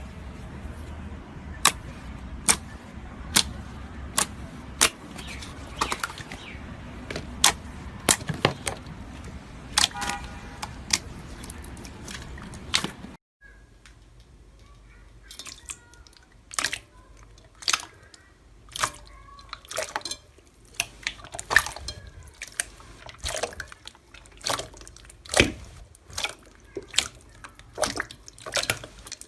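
Slime being pressed and pulled, giving a string of sharp wet pops and clicks, roughly one or two a second. The background drops away suddenly about thirteen seconds in, and the sticky pops and crackles go on over a quieter background.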